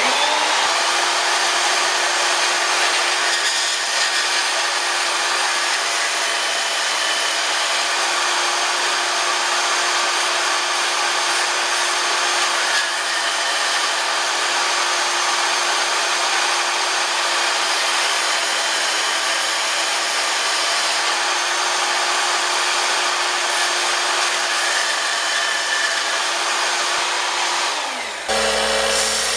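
Vertical bandsaw starting suddenly and cutting a rusty steel piece: a steady hiss of blade on metal over a steady motor hum. About 28 seconds in the saw stops and a belt sander takes over, with a lower hum.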